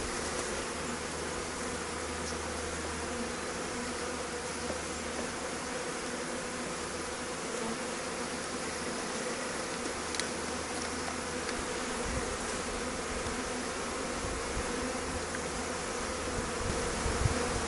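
A mass of honeybees buzzing around an open hive box during a package install: one even, unbroken hum.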